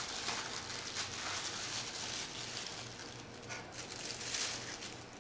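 Close-miked chewing of a rare bison burger: soft, wet mouth sounds and small clicks, over a faint low hum.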